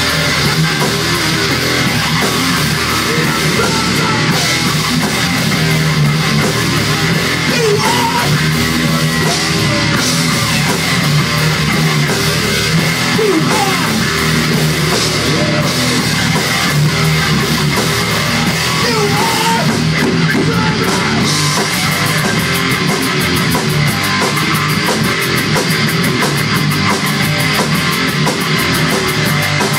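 Rock band playing live: distorted electric guitars, bass guitar and a drum kit, loud and unbroken.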